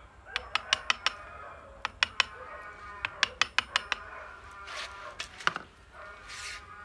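Hammer striking a steel chisel into the deadwood of a Siamese rough bush (duối) bonsai trunk, carving down a scar: sharp taps in quick runs of two to five, about fourteen in all, with short pauses between.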